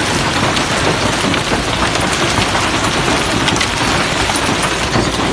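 Heavy hail pelting a road and parked cars: a steady, dense clatter of countless small impacts.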